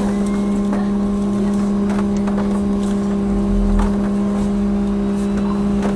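Cabin sound of a moving trolleybus: a steady electrical hum over low road rumble, with occasional short rattles.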